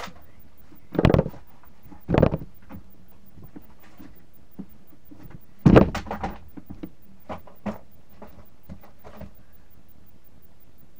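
Nerf Demolisher 2-in-1 blaster being fired: three loud, short thumps at about one, two and nearly six seconds in, each followed by a few lighter clicks and knocks.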